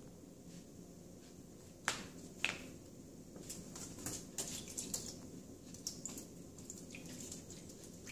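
Young raccoon's claws and paws clicking and tapping on the wet floor of an acrylic bathtub as it spins after its tail, with two sharper knocks about two and two and a half seconds in and a run of lighter clicks after.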